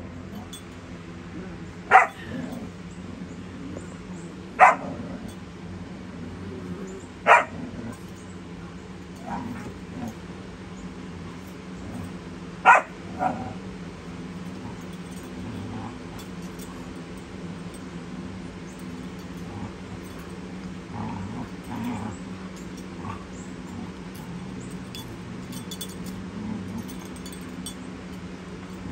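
Puppies yipping as they play-fight: four sharp yips a few seconds apart in the first half, then a few fainter ones.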